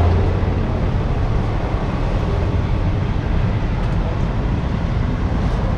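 Steady road noise from highway traffic and idling vehicle engines, a continuous low rumble with no distinct events.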